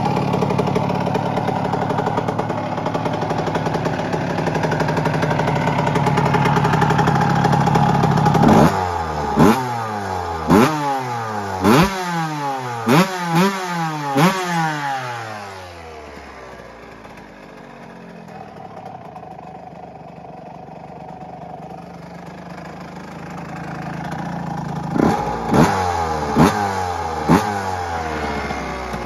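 Suzuki RM 125's single-cylinder two-stroke engine through an HGS exhaust, held steady at high revs on the rev limiter for about eight seconds. It is then blipped about six times in quick succession, each rev falling away, settles to a quieter idle, and is blipped a few more times near the end.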